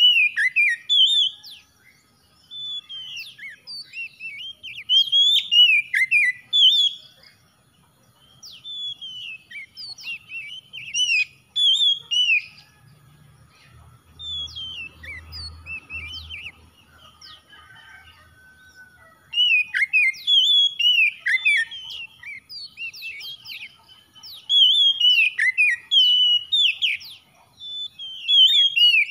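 Oriental magpie-robin singing: phrases of loud, varied whistles, slurs and chirps, broken by short pauses, with the longest pause, about six seconds, near the middle.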